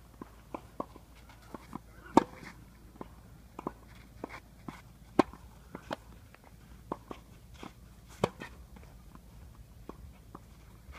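Tennis ball being hit back and forth in a baseline warm-up rally: sharp pops of the ball off the racquet strings, with fainter pops of bounces between. The loudest hits come about every three seconds.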